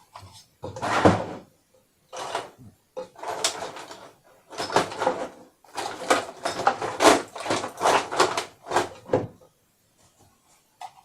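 Hands rummaging through stored items while searching for an old power adapter: a run of clattering and rustling bursts that dies down about nine seconds in.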